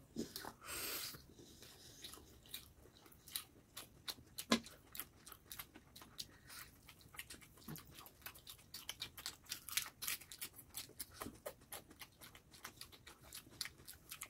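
Close-miked chewing of spicy chowmein noodles and fried chicken lollipop: a steady run of small wet mouth clicks and soft crunches, with a short noisy sound about a second in.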